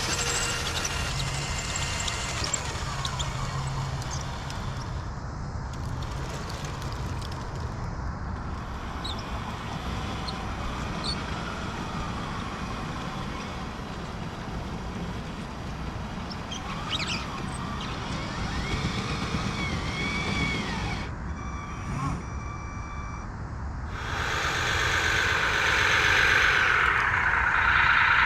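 Scale RC truck sound module playing a simulated diesel truck engine, running with rises and falls in pitch like revving, and louder near the end.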